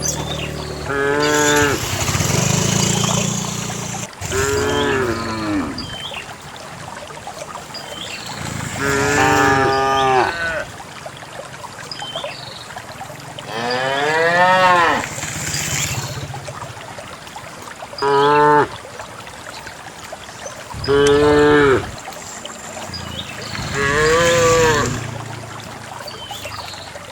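Cattle in a herd mooing again and again: about seven separate drawn-out moos a few seconds apart, each rising and then falling in pitch.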